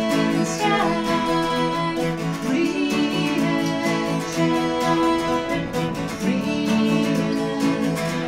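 Live folk-rock song: a woman singing over a strummed steel-string acoustic guitar and a cittern tuned GDGDG.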